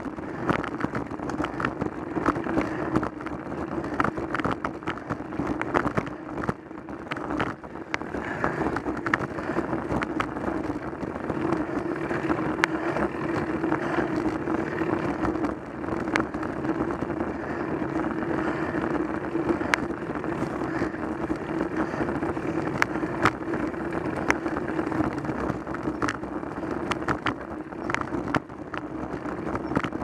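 Road bike riding in a group, heard through a camera mounted on its handlebar: a steady hum of tyre and road vibration with frequent clicks and rattles.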